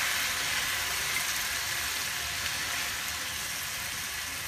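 Chicken curry sizzling in a nonstick frying pan as it is spooned out, a steady hiss that slowly dies down.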